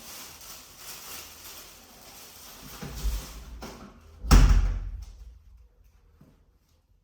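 Rustling and scraping, then one loud thump about four seconds in that dies away over about a second.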